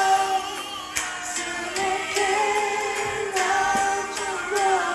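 A song with sung vocals and a light beat, long held notes carrying through, with two men singing along to it.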